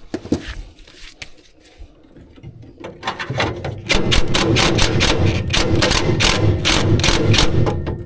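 Rapid mechanical ratcheting clicks over a low rumble, starting about three seconds in and stopping just before the end.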